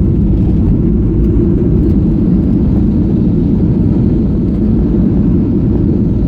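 Boeing 737-800 airliner heard from inside the cabin: a steady low rumble of engines and wheels as it rolls along the runway after landing.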